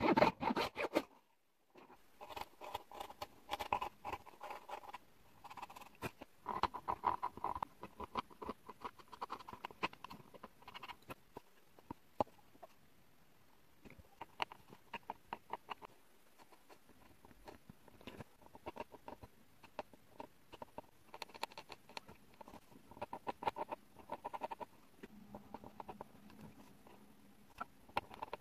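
A blade cuts through a coloured pencil's tip, a louder crunch in the first second. Then a fine pointed tool carves the coloured-pencil lead: quick runs of tiny clicks and scratches in bursts, with short pauses between.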